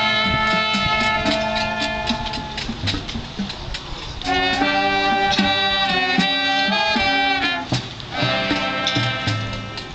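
High school marching band playing: brass and winds over a drum line. A held chord fades about two and a half seconds in, then the full band comes back in loud about four seconds in with drum strokes, breaks off briefly near eight seconds and starts again.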